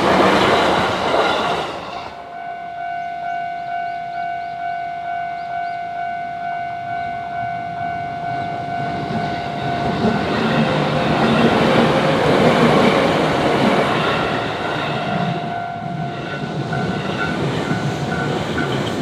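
Japanese level-crossing warning bell ringing in a steady, evenly repeating pattern as trains pass over the crossing, one at the start and another from about ten seconds in, wheels clattering on the rails.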